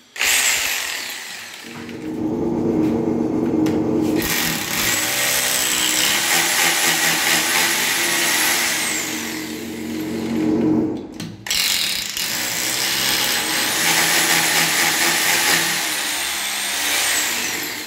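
Power drill boring into ceramic wall tile, running steadily in two long runs with a brief stop about two thirds of the way through, a thin high whine riding over the motor noise.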